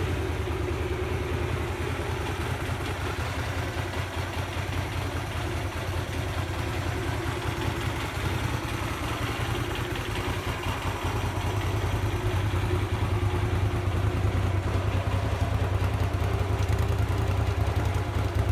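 Hyosung Aquila GV250's air-cooled 250 cc V-twin idling steadily after a cold start, the exhaust a little louder near the end.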